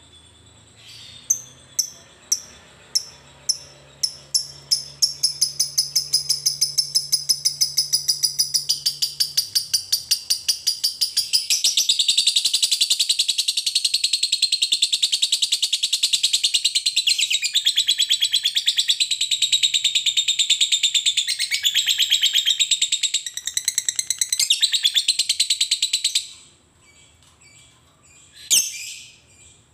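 Fischer's lovebird giving its long chattering 'ngekek' song. It starts about a second in as separate sharp chirps that speed up into a fast, unbroken high chatter lasting about twenty seconds, then stops abruptly. One short call follows near the end.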